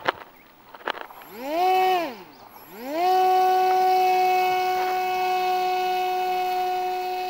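Motor and propeller of a radio-controlled Icon A5 model seaplane, a steady high buzz that is throttled up briefly and cut back, then throttled up again and held for a takeoff run across grass, fading a little as the plane pulls away. Two sharp knocks come near the start and about a second in.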